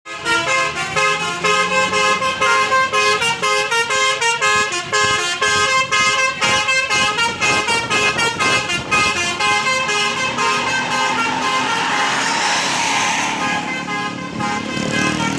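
Multi-tone 'telolet' bus horn playing a quick melody of short, stepped notes. From about nine seconds in the notes give way to a loud rushing noise.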